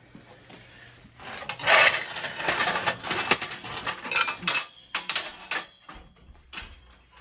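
Metal clattering and scraping: a dense run of clinks and rattles starting about a second in and lasting several seconds, then a few separate knocks.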